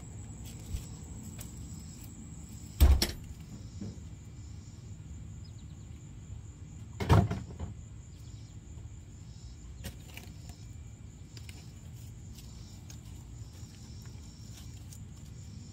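Two loud, sharp knocks about four seconds apart from the plastic body of a Power Wheels Hello Kitty ride-on toy car being handled as it is taken apart, with a few small clicks between them over a steady low hum.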